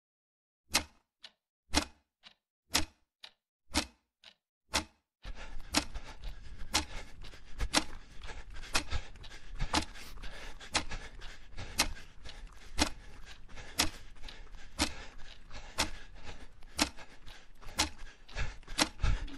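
Clock ticking, a louder tick and a softer tock alternating, about one tick a second. A little over five seconds in, a steady hiss of background noise comes in under the ticking.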